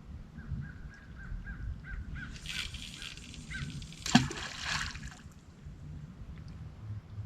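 Water splashing and sloshing as a flathead catfish thrashes, with one loud splash about four seconds in. A short high chirp repeats about three times a second through the first few seconds.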